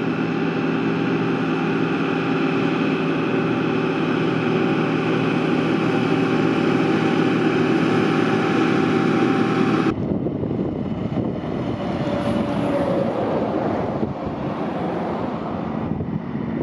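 Ford water tender truck running steadily as it sprays pink liquid from a side nozzle, an even engine-and-pump drone with a spray hiss. About ten seconds in the sound changes suddenly to a rougher, windy rush of a truck coming down the road.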